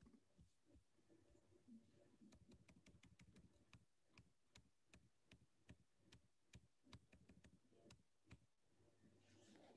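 Near silence broken by faint, irregular clicks on a computer, a few per second, as slides are clicked through.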